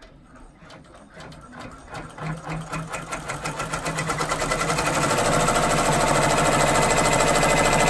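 Multi-needle embroidery machine stitching down a piece of applique fabric (a tackdown stitch). Its rapid, even needle strokes start faint and build up over the first few seconds, then run steadily at full speed.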